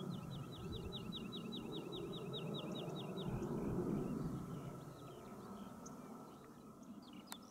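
A small bird singing a rapid run of about fourteen identical short notes over some three seconds. Under it is a low rumble that swells about four seconds in and then fades away.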